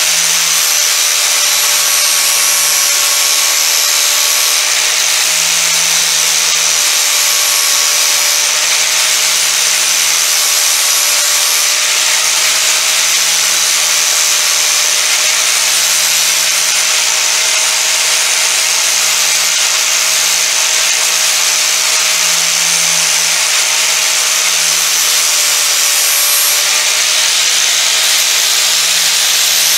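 Angle grinder with a sanding disc running steadily while sanding a back-angle into the coped end of a piece of trim: a steady motor whine under a loud, even sanding hiss.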